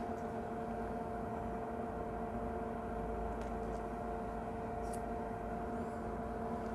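Steady electrical hum with fixed pitches, with a few faint soft ticks around the middle.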